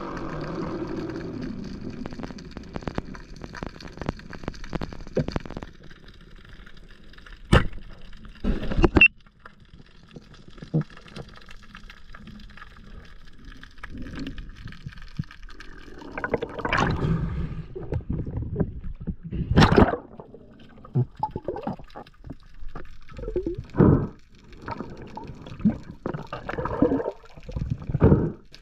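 Water gurgling and sloshing around the camera in irregular swells, with a few sharp knocks.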